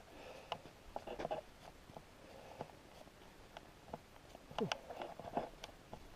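Faint footsteps and rustling, with scattered small clicks.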